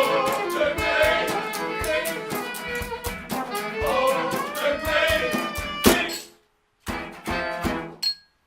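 Instrumental ending of a band song, with fiddle over a fast, even beat. The music stops dead about six seconds in, comes back for a short closing phrase, and ends on one last sharp hit.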